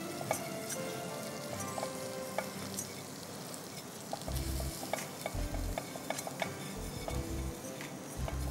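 Butter and flour sizzling in a nonstick saucepan as a whisk stirs them into a roux for white sauce, with frequent light clicks of the whisk against the pan.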